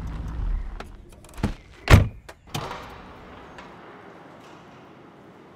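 A car door opened and shut: a few light clicks of the latch and handle, then a solid thunk as it closes about two seconds in, with a smaller knock just after, followed by quiet room tone.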